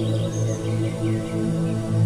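Slow ambient new-age music of sustained low drone tones, with several brief, faint bird chirps over it in the first part.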